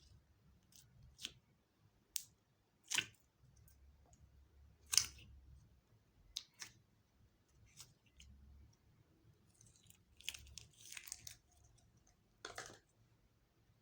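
Slime being stretched and squished by hand, giving scattered sticky clicks and pops, with a run of crackling about ten seconds in.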